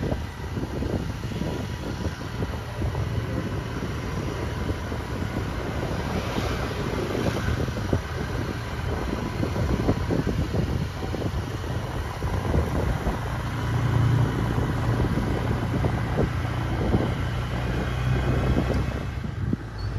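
Wind buffeting the microphone on a moving motor scooter, over the steady drone of the scooter's engine and road noise.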